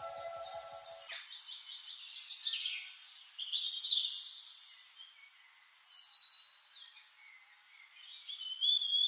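Several songbirds chirping and calling, with quick trilled runs of notes and short whistled phrases.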